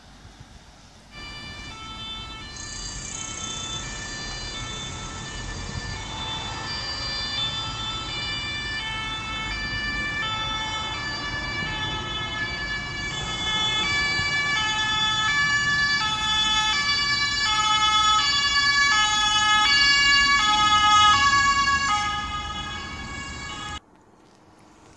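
German rescue-service vehicles' two-tone sirens (Martinshorn), switching between a high and a low tone about every two-thirds of a second. From about halfway through, two sirens sound together out of step and grow louder, and the sound cuts off suddenly near the end.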